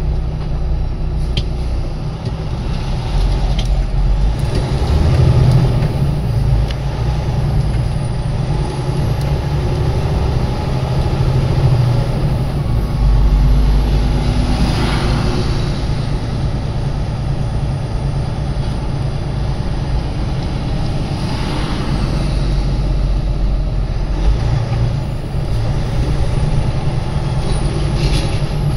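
Truck engine and road noise heard from inside the cab while driving slowly, a steady low rumble. Two brief hissing swells come about halfway and about three-quarters through.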